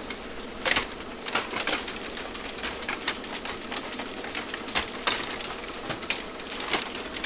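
Linotype typesetting machine running: irregular mechanical clicks and clacks over a steady hum.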